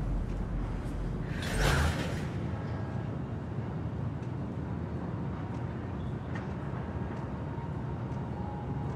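Low, dark ambient rumble of horror-film sound design, with a short hissing whoosh about one and a half seconds in, after which the deepest part of the rumble falls away.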